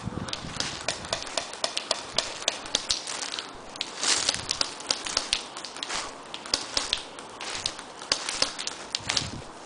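Footsteps crunching over dry leaves and twigs: many sharp, irregular crackles a few times a second, with brief rustling swells about four seconds in and near the end.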